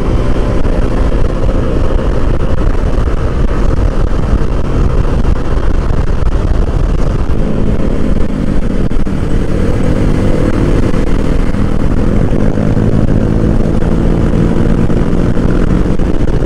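Honda Click 150i scooter's single-cylinder engine running at highway cruising speed under heavy wind rush on the microphone, the engine note growing stronger about halfway through as the scooter speeds up.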